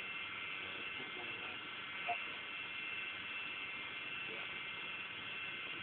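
Cement mixer running steadily, with a brief louder sound about two seconds in.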